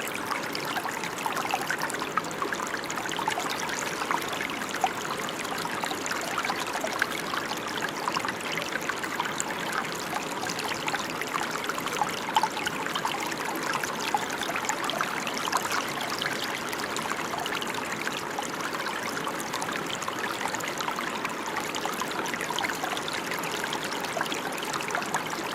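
A brook gurgling: steady running water with many small, quick splashes.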